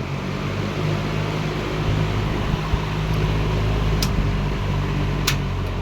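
Mid-1960s AMC 20-inch box fan made by Hunter, with aluminum blades, running in reverse. Its air makes a steady rush over a low motor hum, and two light clicks come about four and five seconds in.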